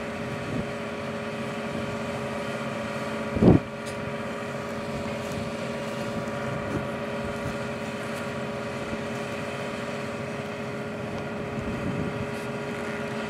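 Engine of a tractor hitched to a large square baler running at a steady drone, with one short thump about three and a half seconds in.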